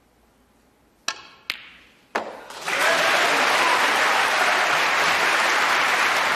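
Snooker balls clicking on a long pot: three sharp knocks within about a second, the cue striking the cue ball and the balls colliding, in a hushed arena. Then the audience breaks into loud, steady applause for the pot.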